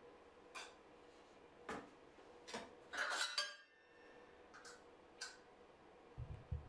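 Handling sounds of ceramic wall tile being set: about half a dozen short scrapes and clinks of hard pieces, the longest and loudest a scrape a little before halfway.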